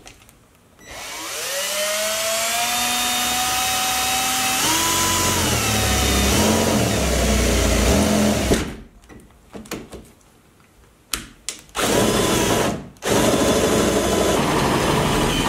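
Power drill with a step bit boring a 3/4-inch hole through a pickup truck's sheet-metal roof: the motor whine rises as it spins up, then runs with a low grinding as the bit cuts. It stops about 8.5 s in, gives a few short blips, and runs again from about 12 s in.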